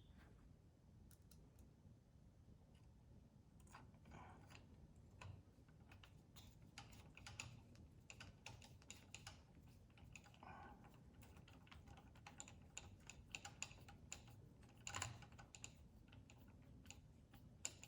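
Faint, irregular light clicks and taps of a hand tool and small screws being handled while self-tapping screws are fitted, with a few slightly louder knocks.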